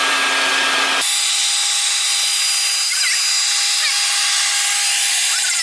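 Electric power tool motor running loudly and steadily, its pitch stepping up about a second in.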